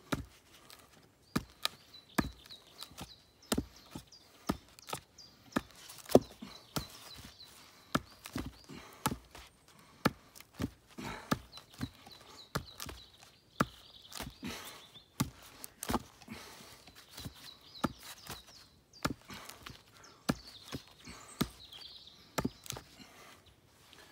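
A bushcraft knife's tip being driven into a wooden stump again and again in a tip-strength test: sharp, irregular knocks at roughly one to two a second. The tip holds without snapping.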